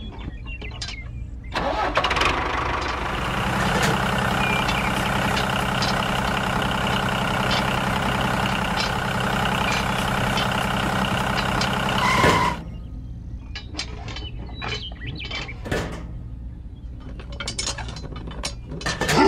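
Mini toy tractor running: a steady engine sound starts about two seconds in and cuts off abruptly about ten seconds later. Scattered clicks and light knocks follow.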